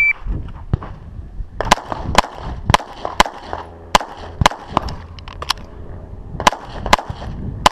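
The tail of the shot timer's start beep, then a rapid string of about a dozen pistol shots beginning about a second and a half in, with a pause of about a second near the middle.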